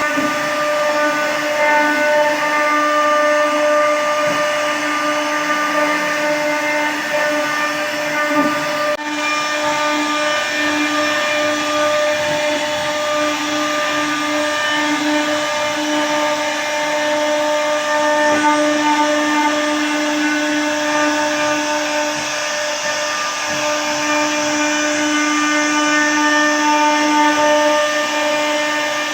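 CNC router spindle running at a steady speed while its bit cuts a flower design: a steady, even whine over a rough cutting noise.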